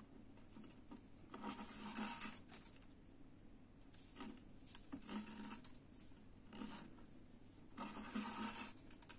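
Quiet rustling and scraping of waxed thread being handled and pulled tight into macramé knots, in several short bursts.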